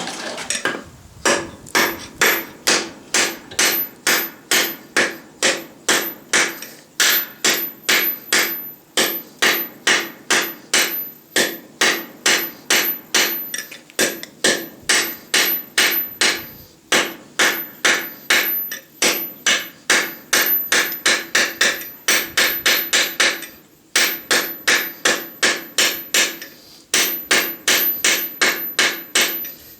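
Light 1-pound tack hammer striking hot steel on a small stake anvil, forging blows at about two to three a second with a few short pauses. Each blow leaves a ringing tone.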